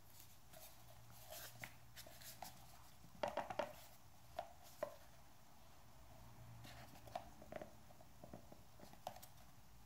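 Hands handling a small cardboard product box: faint scattered ticks and taps, with a cluster of sharper taps a little over three seconds in.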